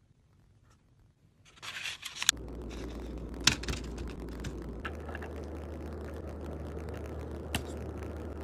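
A bento lunch box being packed by hand: soft scraping and rustling of food against the box, with a couple of sharp taps, over a steady low hum. The first second or so is nearly silent before the handling starts.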